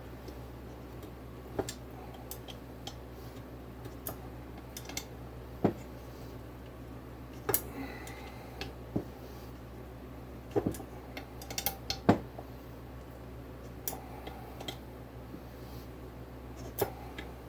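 Irregular metallic clicks and clinks of a hand wrench on the crankcase bolts of a small engine as they are tightened, about a dozen sharp taps spread out over a steady low hum.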